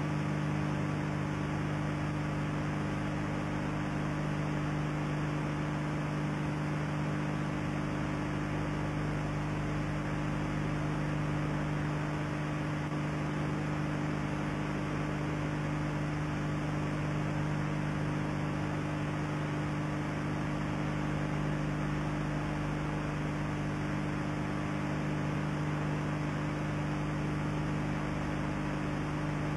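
Steady electrical mains hum, a low buzz of several even tones, over a constant hiss, the noise floor of an old analogue video recording. Nothing else stands out.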